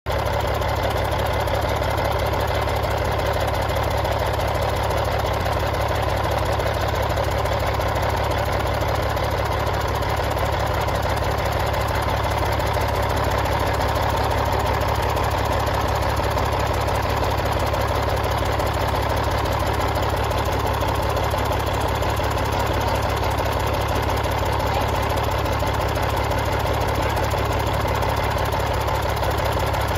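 A Caterpillar C13 ACERT inline-six diesel engine, out of a 980K wheel loader and run bare on the shop floor, idling steadily with an even low rumble.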